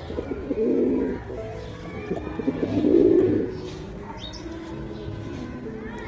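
Male pigeon cooing in courtship display, with two loud coos, one about half a second in and one about three seconds in, over background music.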